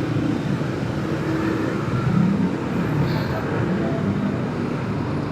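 Motorcycle engine running under the rider with the din of surrounding city traffic, cars and buses, while riding slowly through congested traffic. A steady low rumble whose pitch wanders a little.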